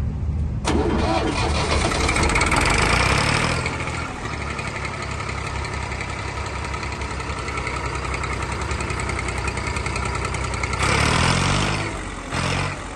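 Massey Ferguson 240 tractor's three-cylinder diesel engine started, catching about half a second in and running loudly at first, then settling to a steady idle. Near the end the throttle is blipped twice, the engine note rising and falling each time.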